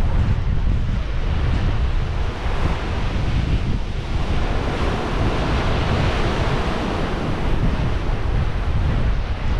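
Sea surf surging and foaming through a narrow limestone inlet, a churning wash that swells louder in the middle, with heavy wind buffeting on the microphone.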